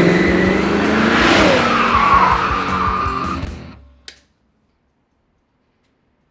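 Action-chase music mixed with car tyres skidding and squealing, fading out about three and a half seconds in. A single sharp click follows just after, then dead silence.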